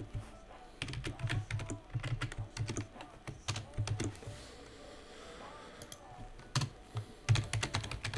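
Typing on a computer keyboard: bursts of keystrokes, a pause of about two seconds just past the middle, then fast typing again near the end.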